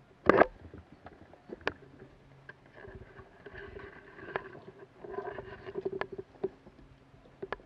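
Footsteps and rustling through undergrowth and ivy, with twigs snapping. A loud brushing knock comes right at the start and a few sharp snaps follow.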